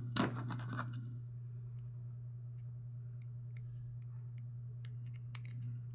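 Light ticks and rustles from a white plastic USB charging cable being handled, over a steady low hum.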